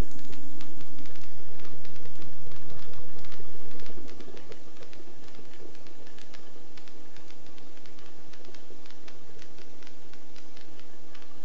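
Helicopter running, heard from inside the cockpit: a steady hum with several held tones and rapid, irregular clicking over it. The level drops somewhat about four seconds in.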